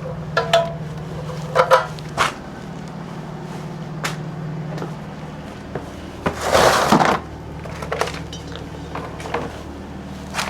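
Rummaging through things: a series of short knocks and clicks as objects are handled and moved, with a longer scraping noise about six and a half seconds in, over a steady low hum.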